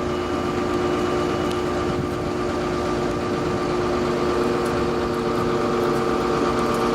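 A heavy vehicle's engine running steadily at idle, a constant hum of several steady tones; one of the tones grows stronger about four seconds in.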